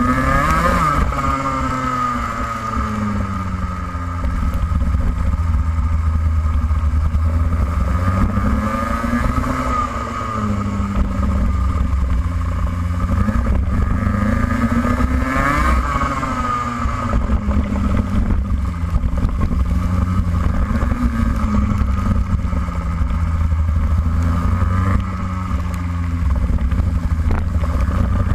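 Onboard sound of a racing kart's engine at full race pace, its note repeatedly climbing under acceleration and dropping off as it lifts, over a heavy low rumble.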